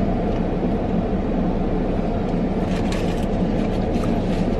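Steady low rumble of a parked car running, heard inside the cabin, with a few faint light rustles and clicks in the second half.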